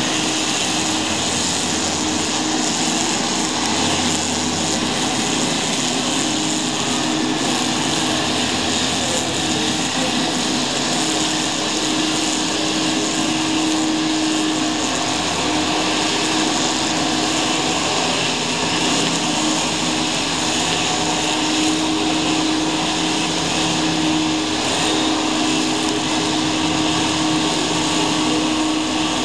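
Several petrol brushcutters (string trimmers) running at once, cutting grass down to the ground. A steady high engine whine with one constant tone.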